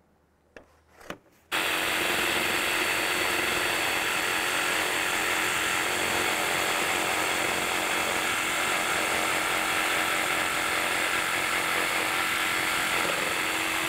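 DeWalt cordless jigsaw cutting freehand along a pencil line through a board of solid stock, joining two table-saw cuts. After a couple of clicks it starts about a second and a half in, runs steadily, and stops at the very end.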